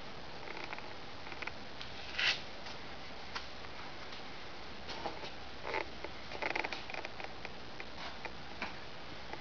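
Steady hiss of garage room tone with scattered faint clicks and rustles. A short rustle about two seconds in is the loudest, and there is a small cluster of clicks in the second half. No engine is running.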